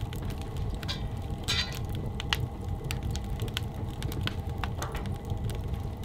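Wood fire burning in a small sheet-metal tent stove, crackling with scattered sharp pops over a low steady rumble.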